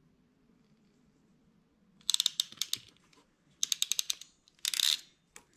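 Hand crimping tool clicking as it crimps Weather Pack terminals onto wires: three quick runs of sharp clicks, about two, three and a half, and four and a half seconds in.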